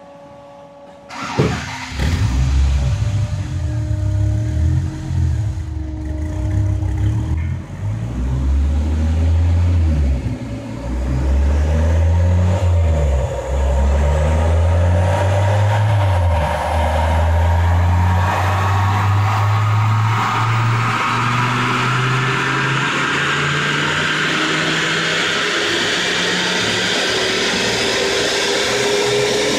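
Car engine accelerating hard on a chassis dynamometer from a standstill toward 125 mph. Its pitch climbs and drops back several times as it goes up through the gears, then climbs steadily, with a thin high whine rising alongside. This is the run-up for a dyno parasitic loss measurement.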